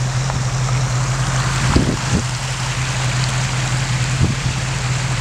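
Wind rushing over the microphone with a steady low hum underneath and a few faint knocks.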